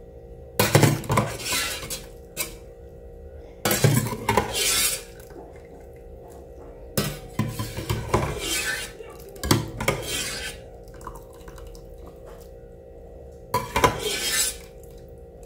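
Slotted stainless steel spoon scraping and clinking against the inside of a metal cooking pot and a stainless steel bowl as noodles and egg are scooped and strained, in five short bursts of clatter with pauses between.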